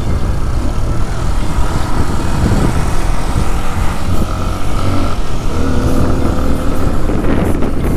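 Motorcycle engine running while riding along a paved road, with rumble from the wind and road.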